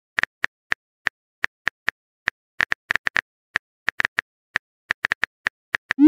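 Keyboard typing sound effect: a run of quick, uneven key clicks, about five a second, while a text message is being typed.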